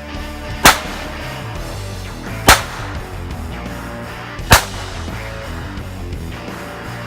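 Three gunshots, about two seconds apart, over steady background music.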